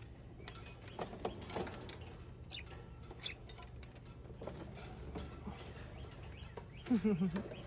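Pet birds chirping faintly over scattered light clicks and rustles and a steady low hum, with a short bit of a voice near the end.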